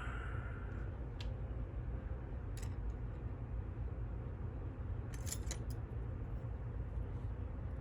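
A few light metallic clicks and ticks of small lock parts being handled, with a short cluster about five seconds in, over a steady low hum of a room air conditioner running.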